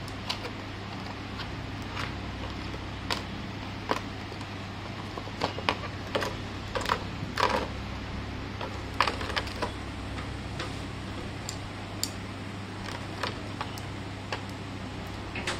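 Scattered clicks and crackles of a plastic packaging tray and a plastic neckband earphone being handled as it is lifted out of the box, with bunches of clicks a third of the way in and again just past halfway, over a steady low hum.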